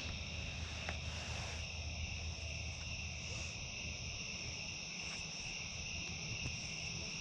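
Night chorus of crickets trilling steadily, several high pitches layered together, over a low steady rumble.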